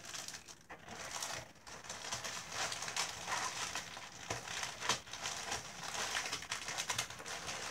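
Plastic packaging crinkling and rustling in uneven bursts, with light clicks, as small kit items are handled and packed into a box.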